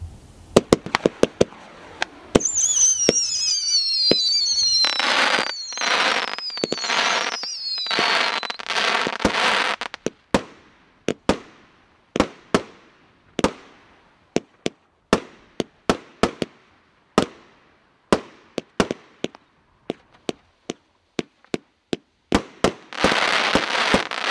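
Consumer firework cake (.38 Special) firing a rapid run of sharp shots, with several falling whistles a few seconds in and stretches of dense crackling as the stars break. It then settles into a string of single reports about two a second, and ends with another burst of crackling.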